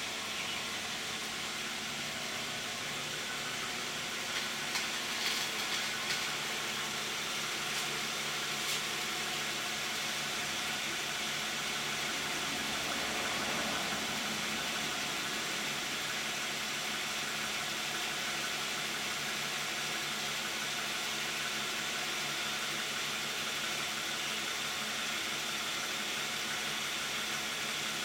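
2010 Toyota Camry's 3.5-litre V6 idling with the hood closed and the climate control on: a steady, even hiss over a faint low hum. A few light taps come about five seconds in.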